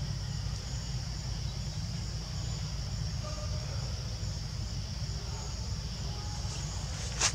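Steady high-pitched insect chorus over a low steady rumble, with one sharp click near the end.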